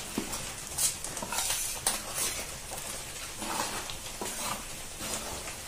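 A metal spoon stirring and scraping ragi flour with hot water in a steel plate, making irregular short scrapes and knocks against the plate as the dough is mixed.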